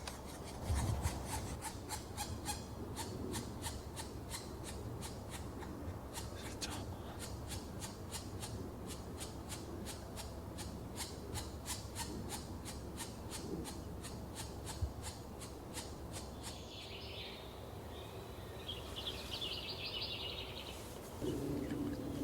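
A steady run of dry, rasping clicks, about three or four a second, which stops about two-thirds of the way through. A few short high bird calls follow near the end.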